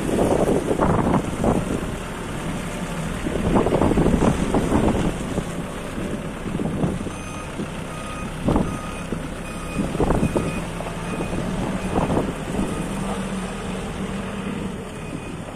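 MST M644 backhoe loader with its diesel engine running, with louder bursts of low rumble in the first few seconds. From about seven seconds in, its reversing alarm beeps steadily, about two beeps a second, as the machine backs up.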